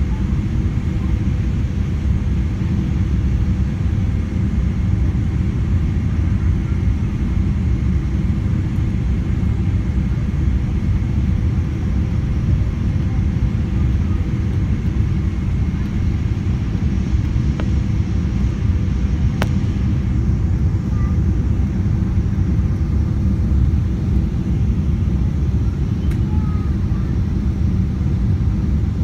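Steady cabin noise of a Boeing 777-300 airliner on descent, heard from a window seat: a low rumble of engines and airflow with a faint high whine. A single click about two-thirds through.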